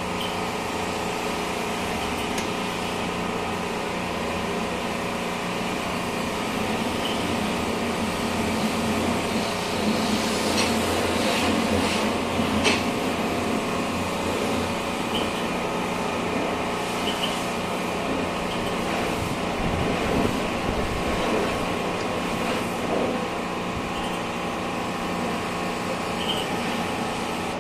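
A steady machine hum holding several tones, with a few sharp clicks about ten to thirteen seconds in.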